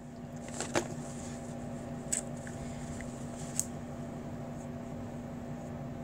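Steady low room hum with three faint, short rustles about one, two and three and a half seconds in, from a paper tissue being handled and dabbed under the eye.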